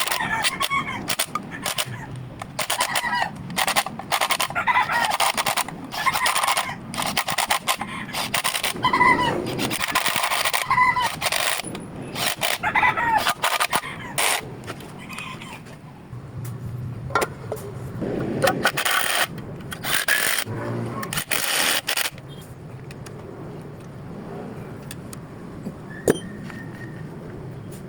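Repeated sharp knocks and clanks of tools and engine parts being handled during an engine overhaul, with a bird calling in the background; the knocking stops about 22 seconds in, leaving a quieter steady background with one last click.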